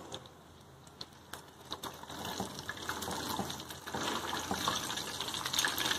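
Fish pieces frying in hot oil in a pan, sizzling and crackling, faint at first and growing louder after about a second and a half. Scattered light clicks and taps of a spatula turning the fish.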